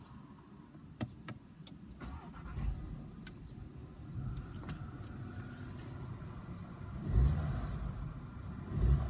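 Volkswagen Tiguan engine idling, a low steady rumble heard from inside the car, just started with a newly replaced start/stop button. A few small clicks sound in the first few seconds, and two louder low thumps come near the end.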